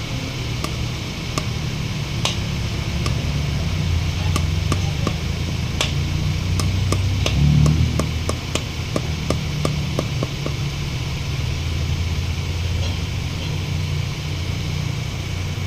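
Small hammer tapping a new axle oil seal into its bore in a cast-aluminium front differential housing: a run of light, sharp taps, irregular and about one or two a second, the seal going in a bit hard. A steady low hum runs underneath and swells briefly about halfway through.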